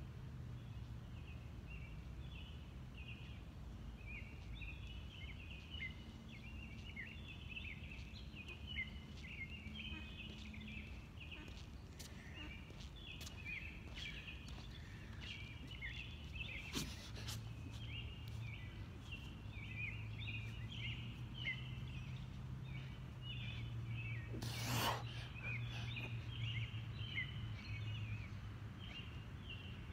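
Dense night-time chorus of short, high chirping calls from animals outdoors, going on without a break over a low steady hum. About 25 seconds in, a short loud rush of noise cuts across it.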